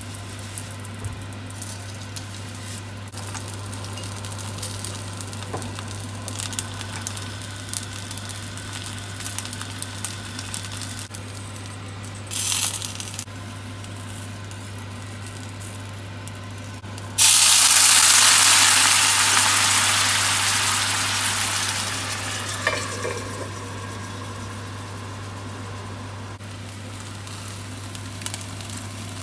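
Wontons sizzling in hot oil in a steel frying pan, with small ticks and taps as they are set down, over a steady low hum. About two-thirds of the way in, a sudden loud hiss bursts out and dies away over about five seconds, as when water goes into the hot oil for the steaming stage of gyoza-style pan-frying.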